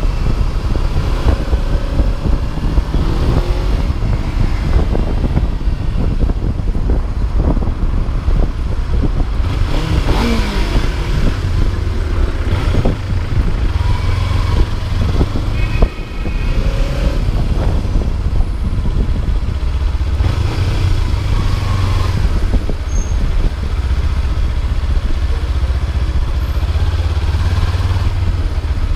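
Kawasaki Ninja 300's parallel-twin engine running as the motorcycle rolls slowly through city traffic, with a steady low rumble and a few brief rises in revs.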